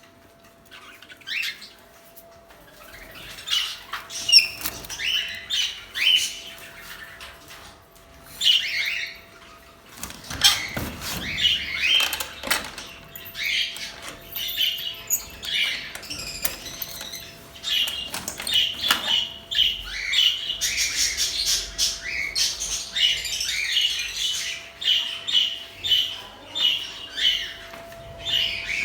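A group of budgerigars chirping and chattering in many short, quick calls, growing denser and more continuous in the second half.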